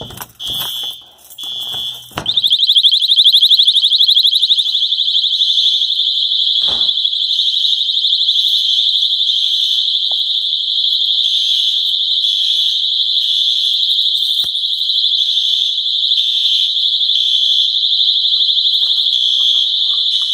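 Fire alarm sounder going off during a system test: a few short high-pitched beeps, then from about two seconds in one continuous high-pitched electronic tone, loud and steady.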